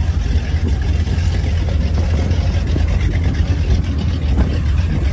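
Motorboat engine running steadily with a heavy low rumble.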